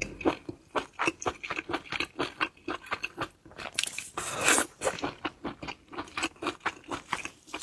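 Close-miked chewing and crunching of seafood: a run of quick, sharp crunches and wet mouth clicks, with a longer crackling crunch about four seconds in.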